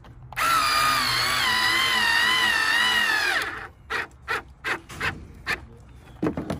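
Black+Decker 4V MAX cordless screwdriver running for about three seconds as it drives a screw into wood, its whine wavering slightly in pitch under load and falling as it stops. Several short bursts follow as the screw is snugged down.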